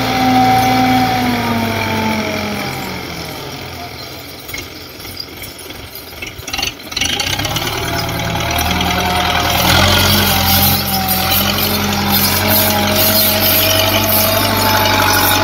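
Belarus 510 tractor's diesel engine working as the tractor pushes earth with a front blade. The revs sag for the first few seconds, then pick up again and run steadily under load, with a few clanks and rattles about six to seven seconds in.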